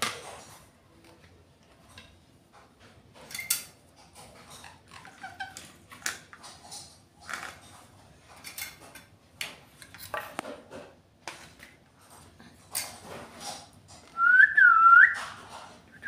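A caged parakeet making short scratchy chirps and clicks. About fourteen seconds in, a loud whistle starts, repeating looping notes that dip and rise.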